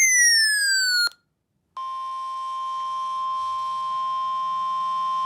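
Emergency alert broadcast tones: a falling electronic tone, a short break, then a steady high attention tone held for about three and a half seconds.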